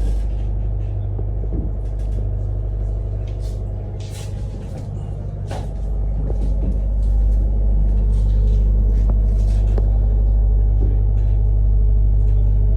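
Diesel engine running steadily aboard a catamaran, a deep even drone, with a few light knocks and clicks over it. The drone grows louder about six seconds in.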